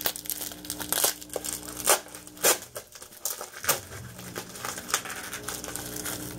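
Packaging of a two-pack of nail polishes being opened by hand: crinkling and tearing, with several sharp crackles.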